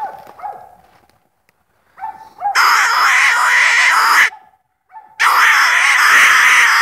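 Coon dog barking treed, with a couple of short barks at the start. Then come two long, loud rushing noises of a few seconds each, of unclear source, which are the loudest things heard.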